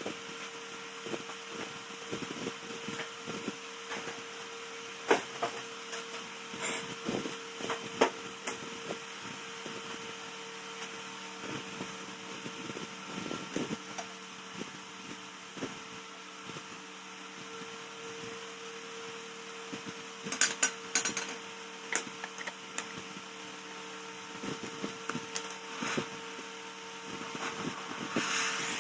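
Scattered metal clinks and knocks from a homemade steel exhaust pipe being handled and offered up to a Honda motorcycle's engine. The knocks come closest together about twenty seconds in. A steady hum runs underneath throughout.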